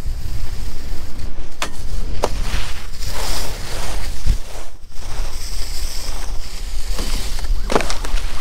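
Wind rushing over the microphone of a camera skiing at speed, a heavy low rumble, with skis hissing and scraping over groomed snow. A couple of sharp clicks come about one and a half and two seconds in.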